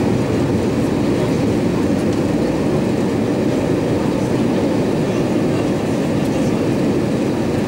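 Steady, low cabin roar of an Airbus A320-232 on approach, heard from inside the passenger cabin: engine and airflow noise with no change in pitch or level.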